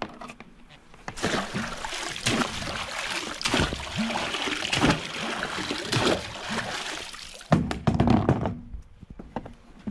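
Pool water splashing and sloshing for several seconds as an outdoor Wi-Fi access point with its antennas attached is plunged and moved about in a swimming pool, then a few heavy knocks about three-quarters of the way through as it is set down on the pool's edge.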